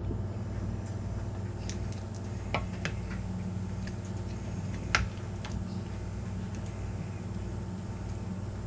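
Wooden spoon scooping vegetables and gravy out of a cast-iron Dutch oven, giving a few light clicks and taps against the pot, the clearest about five seconds in, over a steady low hum.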